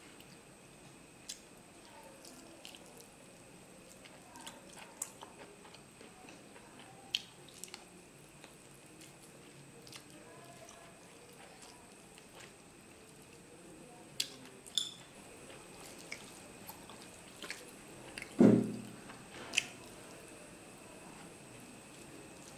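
Close-up eating sounds of mutton kosha and basmati rice eaten by hand: soft chewing with scattered wet mouth clicks and smacks, and fingers squishing rice and curry on a steel plate. One louder short low sound comes about three-quarters of the way through.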